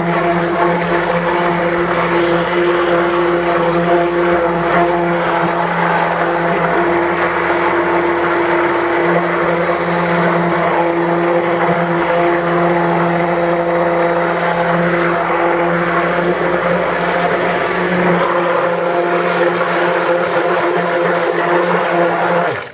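Stick blender motor running at a steady pitch while mixing a batch of soap batter, switched off abruptly near the end.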